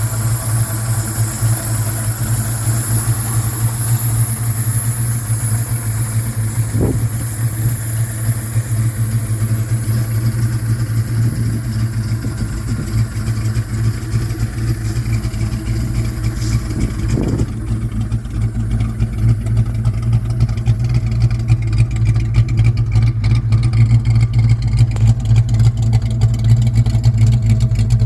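1966 Plymouth Satellite HP2's V8 idling steadily with a low rumble, the engine fully warmed up after a long drive.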